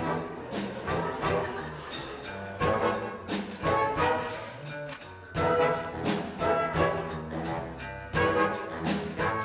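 Orchestral music with brass, a lively piece with strong regular accents.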